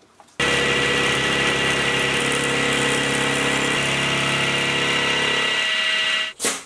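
Milling machine spindle driving a two-flute carbide router bit at about 2,500 RPM as it cuts a flute into a cold drawn steel face mill body: a steady cutting noise with high-pitched whining tones. It starts abruptly just after the beginning and stops about six seconds in, followed by a brief sharp noise.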